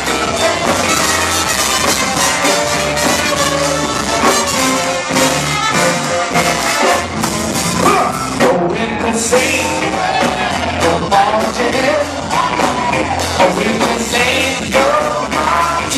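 Live band playing loud brass-led funk-rock: horns, including trombone and trumpet, play lines over a steady bass line and drums, heard through a phone's microphone.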